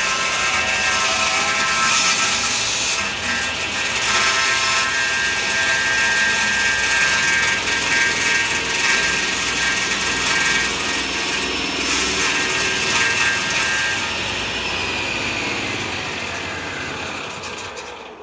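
Table saw blade running and cutting a spinning teak post on a homemade table-saw lathe, the post turned by a cordless drill, a loud steady machine noise with a high whine. About fourteen seconds in the tools are shut off and wind down with a falling whine, fading out near the end.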